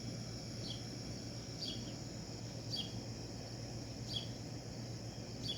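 A bird repeating a short, falling chirp about once a second, over a steady high-pitched insect trill and a low steady hum.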